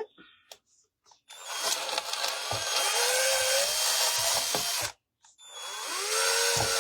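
Power drill running in two bursts, enlarging holes in a painted wood door hanger. The first run lasts about three and a half seconds with its pitch rising as it speeds up; it stops briefly and starts again near the end.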